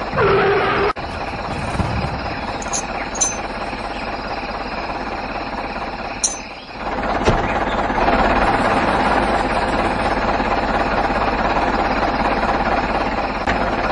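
Small electric motor and gears of a home-made toy tractor running, a steady whir. It dips briefly about six and a half seconds in and then picks up again.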